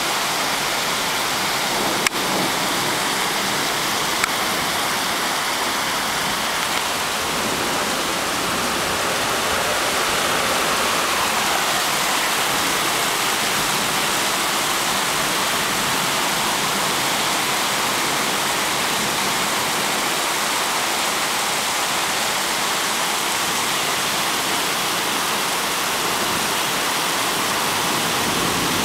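Heavy summer rain pouring down, a steady hiss mixed with muddy floodwater rushing along the street. A sharp tap comes about two seconds in and a smaller one about two seconds later.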